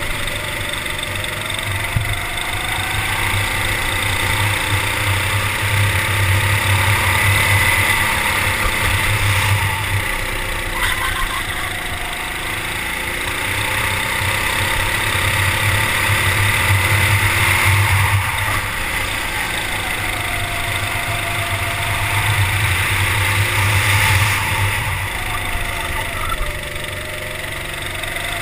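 Go-kart engine heard from on board during a lap, its note rising and falling again and again as the kart speeds up out of corners and eases off into them, loudest three times. A steady rush of air noise runs beneath it.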